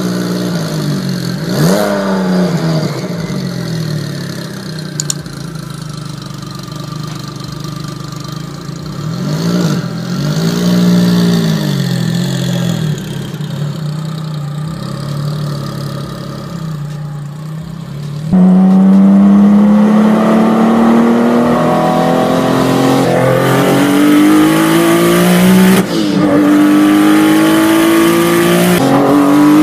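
Sports car engine idling with sharp revs and blips, then pulling away. About two thirds of the way in it gives way to louder hard acceleration heard from inside the car, the engine pitch climbing steadily and dropping at two upshifts.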